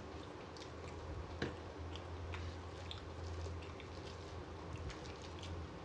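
Chewing and the soft squish of fingers working rice and mashed pumpkin on a metal plate, with scattered small clicks of mouth and hand, over a low steady hum.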